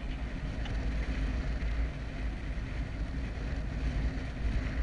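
Wind rushing over the microphone of a paraglider in flight: a steady, low rumbling buffet of airflow.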